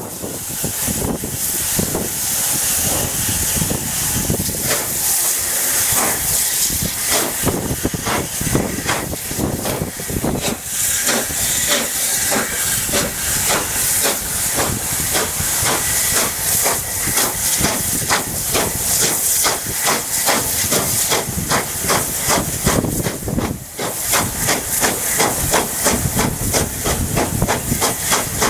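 Steam locomotive working a train on the move, heard from just behind its tender: a steady, quick rhythm of exhaust beats over a constant rush of steam and air.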